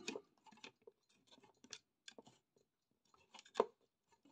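Faint scraping and clicking as fingers and a screwdriver work a small mains transformer loose from a metal power-supply chassis, held back by thickly soldered joints, with a sharper click about three and a half seconds in.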